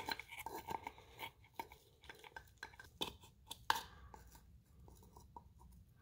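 Pliers working at the plastic filter cage inside a removed oil filter housing: irregular light clicks, taps and scrapes, the sharpest at the very start and about three seconds in.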